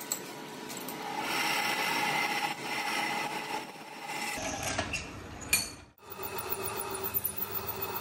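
Pillar drill running, its bit cutting holes in the hub flange of a metal tractor brake drum with a steady scraping grind. The sound drops out briefly about six seconds in.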